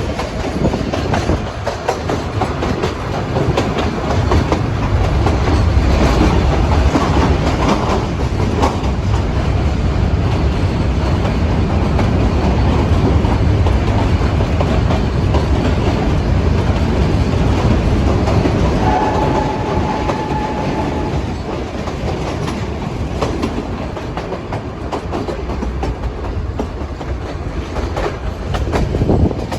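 Narrow-gauge mountain railway train running, heard from on board: a steady rumble with the clickety-clack of wheels on rail joints. The rumble is heaviest in the middle, and a brief high steady tone sounds about two-thirds of the way through.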